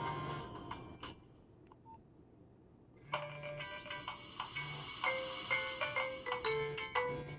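Nokia 1112 mobile phone ringtones: one ringtone's melody dies away within the first second, about two seconds of near silence follow, then another ringtone starts about three seconds in, a quick melody of short notes, several stepping down in pitch, over a pulsing bass.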